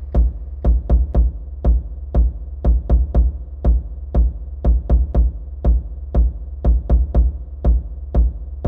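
Electronic horror sound-effect texture: a steady deep rumble under sharp, heavy impacts in a repeating rhythm, about two a second, some falling in quick pairs.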